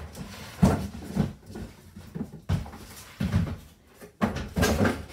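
Boxes and bins being shifted out of the way: a series of irregular knocks, bumps and scrapes about a second apart.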